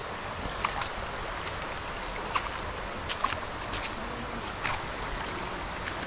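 Shallow rocky stream rushing steadily. Footsteps on a stony path strewn with dry leaves give short, sharp scuffs and clicks at an uneven pace, about one a second.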